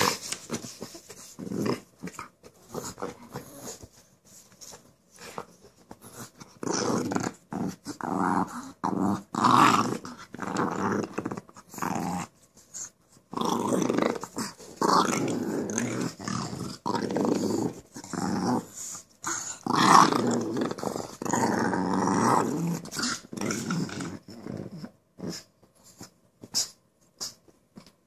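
Pugs growling at each other while squabbling over a drumstick, in rough rumbling bursts that grow longer and louder in the middle, then give way to a few short sharp clicks near the end.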